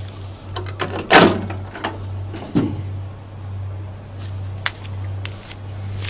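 Microwave oven door being unlatched and pulled open: a loud clunk about a second in and a smaller one about two and a half seconds in, among light clicks and knocks, over a steady low hum.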